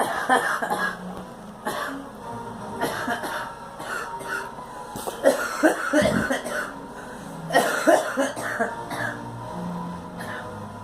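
A girl coughing in repeated harsh fits, bursts coming every second or so, the loudest about halfway through and again near the end.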